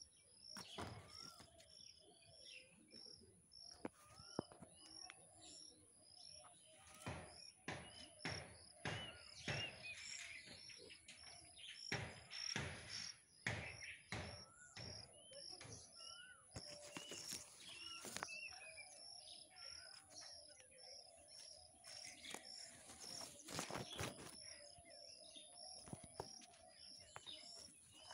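Faint birds chirping: one repeats a short high note about three times a second, with other scattered calls, over scattered soft clicks and knocks.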